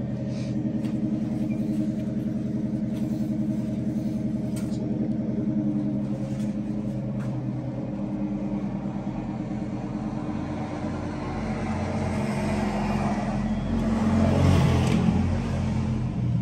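A steady engine hum, with a louder rushing sound that builds about ten seconds in and peaks around fourteen to fifteen seconds in.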